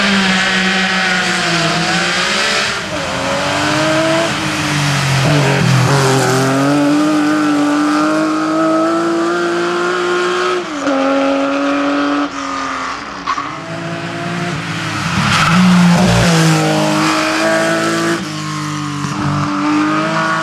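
Rally cars driven hard through bends one after another, their engines revving with the pitch climbing and then dropping at each gear change, several times over, with some tyre squeal.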